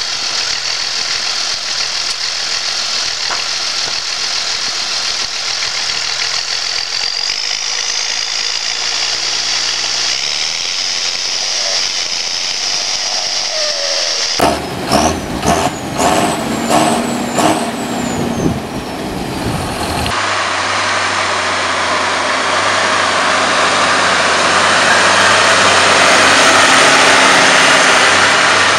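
New Holland tractor engine running, heard from the cab while driving through a young maize field; its engine note shifts about a third of the way in. After a cut there are about six seconds of sharp knocks and short falling squeals. Then a New Holland tractor pulling a reversible plough, its engine and the plough's noise growing louder as it approaches.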